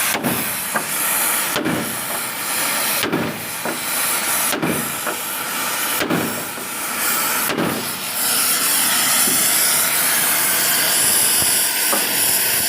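Loud, steady hiss of a high-pressure spray at work. For the first eight seconds a falling whoosh comes back about every one and a half seconds, then the hiss runs evenly.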